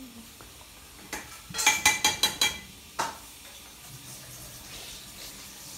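Metal pots and utensils clattering: a quick run of ringing clinks and knocks lasting about a second and a half, then one more knock.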